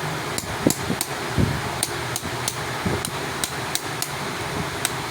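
Light, quick hammer taps, about three a second, during work on a car battery, over a steady fan hum.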